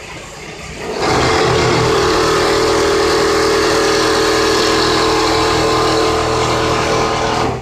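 Richpeace automatic template sewing machine stitching at steady high speed, a loud even mechanical run that starts suddenly about a second in and cuts off just before the end.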